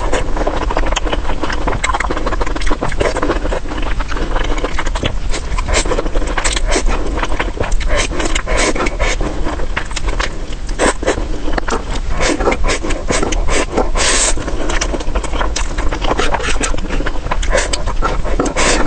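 Close-miked eating sounds: a dense run of irregular crunches and clicks of chewing, over a steady low rumble.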